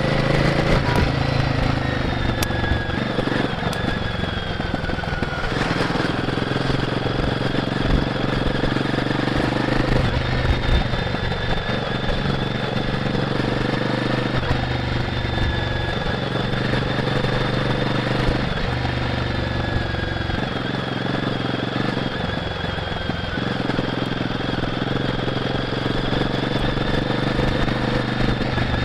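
Royal Enfield Guerrilla 450's single-cylinder engine running through the stock exhaust while riding, its note shifting every few seconds as the throttle changes.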